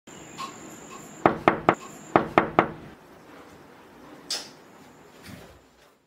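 Knocking on a wooden door: two quick sets of three knocks, less than a second apart.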